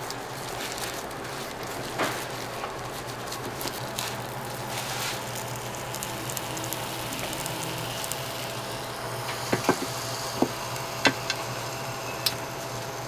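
Sugar-coated croissant dough sizzling on a hot electric waffle iron, a steady hiss. Several sharp clicks and taps come near the end as the metal lid is handled and closed.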